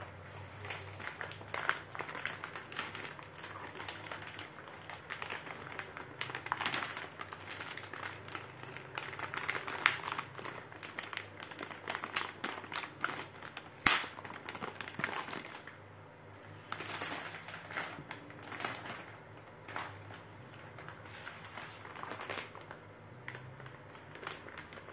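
Packaging being handled: crinkling plastic with many irregular clicks and taps, the sharpest click about 14 seconds in, then sparser rustling toward the end.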